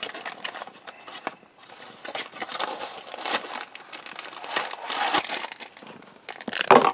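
A foil snack wrapper being handled and opened by hand: crinkling and rustling with scattered light clicks and taps.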